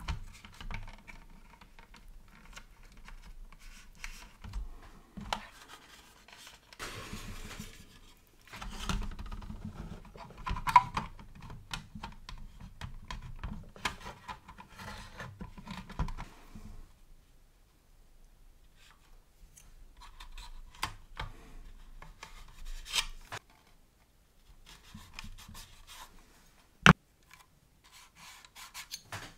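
Hands handling and taping together plastic scale-model aircraft parts: scattered rubbing and scraping with small clicks, and one sharp click near the end.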